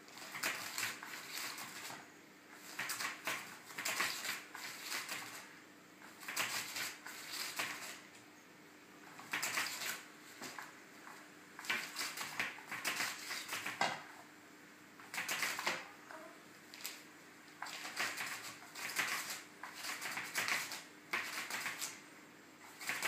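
Nylon cover of a battery-powered 'Catch Me If You Can' cat toy rustling and crinkling in repeated short bursts as its wand sweeps underneath and a cat paws at the fabric. A faint steady hum runs underneath.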